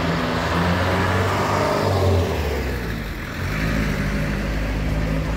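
Street traffic: a motor vehicle's engine passes close and fades about three seconds in, then another vehicle comes on.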